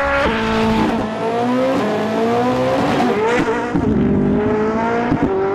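Koenigsegg Jesko Absolut's twin-turbo flat-plane-crank V8 driven hard on a track. Its pitch climbs several times, dropping between the climbs as the gears change and the throttle lifts, with some tyre squeal.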